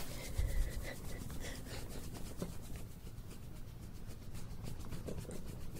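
A hand rubbing a cat's belly fur: a soft, steady rubbing and rustling.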